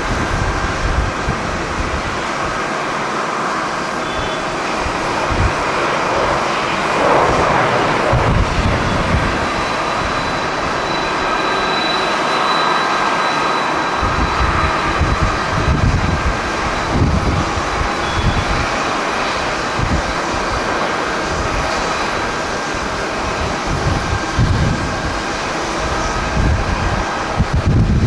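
Jet engines of a StarFlyer Airbus A320 running as it lands and rolls out, a steady roar with a faint high whine. Strong wind buffets the microphone in irregular low rumbles.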